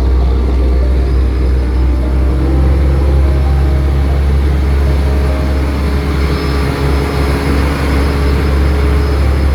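Steady low drone of a passenger ferry's engines heard on board, with a constant rush of noise over it.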